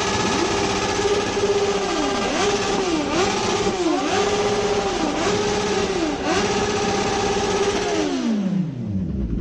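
A sport motorcycle engine revved hard and held at one high pitch. It drops and climbs back several times, then falls away toward idle near the end.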